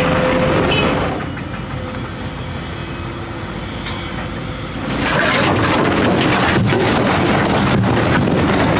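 A large hydraulic excavator's diesel engine working under load. It eases off for about four seconds, with a single click near the middle, then works hard again with rough knocking.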